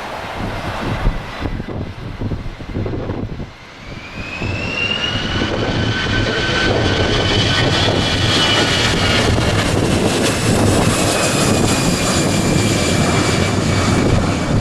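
Jet aircraft engines, rattly and uneven at first with a brief knock about a second in, then spooling up from about four seconds in to a loud steady roar with a rising whine that slowly sinks again.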